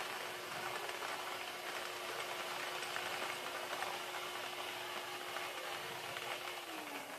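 Air-mix lottery ball machine running: its blower hums steadily while the numbered balls clatter against the clear chambers. Just before the end the blower winds down, its hum falling in pitch.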